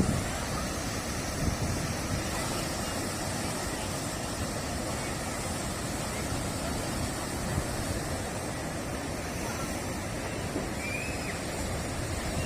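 Surf breaking and washing on a beach, a steady rushing noise, with strong wind rumbling on the microphone.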